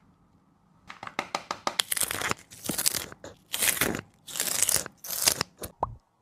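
A dog crunching and chewing crunchy food: a quick run of sharp bites about a second in, then several loud crunching bouts, each about half a second long. It cuts off abruptly just before the end.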